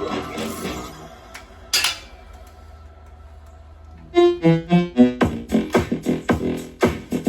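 Electronic music: a quieter passage with a rising sweep, then a beat with pitched synth stabs kicks in about four seconds in.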